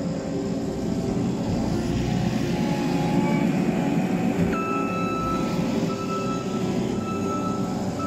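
XCMG XC760K skid steer loader's diesel engine (a YCF3075) running with a steady rumble. A high, steady beeping alarm tone begins about halfway through and returns in short beeps.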